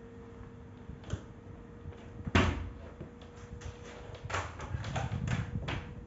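A sharp knock about two seconds in, then a cluster of softer knocks and scuffs over a faint steady hum. It is the handling of a canister vacuum cleaner that is not running, its hose and power cord being moved and the plug pulled from the socket.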